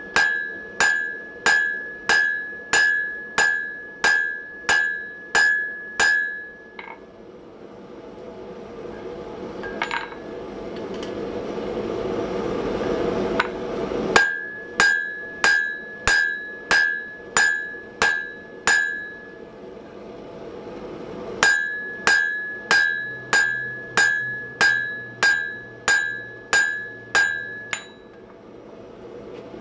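Hand hammer blows on red-hot steel over a French anvil, about two a second, each blow setting the anvil ringing with a bright steady tone, as the shank of a hardy tool is drawn out by hand. The hammering comes in three runs; about seven seconds in it stops while a rushing noise swells, then it starts again.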